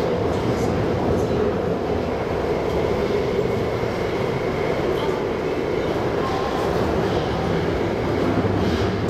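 MTR SP1900 electric multiple-unit train running on the track, heard from inside the passenger car as a steady running noise of wheels and traction equipment.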